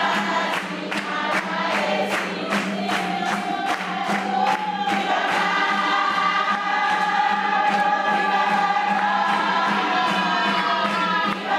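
Group of voices singing together in long held notes over a quick, steady percussive beat.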